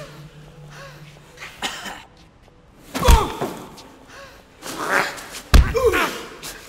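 Fight-scene impact sounds: two heavy hits, the first about three seconds in and the second about five and a half seconds in, each followed by a man's pained groan.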